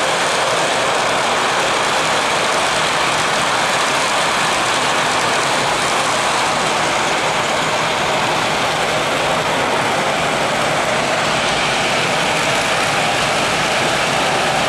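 Model train running on a layout: a steady rolling rattle of coal hopper wheels on the track, unbroken throughout.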